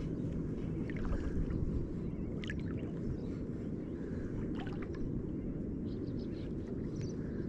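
Steady low wash of water moving against a small kayak's hull as it drifts, with a few faint, brief high chirps.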